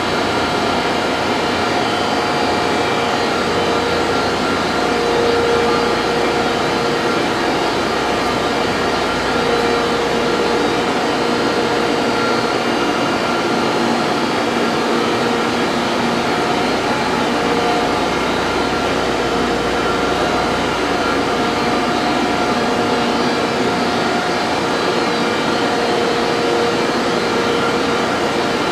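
Steady machine-shop drone with several held whining tones that swell and fade slightly, as from running machinery or ventilation.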